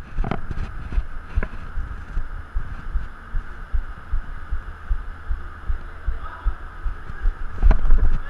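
Low, irregular thuds of a jogging player's own footfalls on artificial turf, picked up through a body-worn action camera, over a steady background hiss. The thuds get louder and quicker near the end as he breaks into a run.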